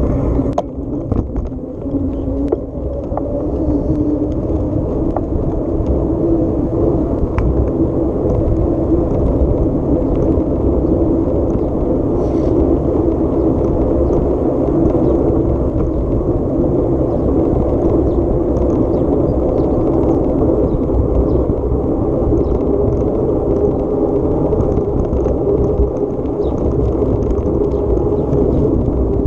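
Off-road vehicle's engine running steadily with a continuous rumble, with a few sharp knocks in the first few seconds.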